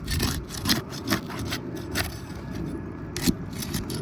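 Crowbar scraping and knocking against asphalt shingles as it is worked under them to pry the sealed-down shingles open: a string of irregular short scrapes and clicks.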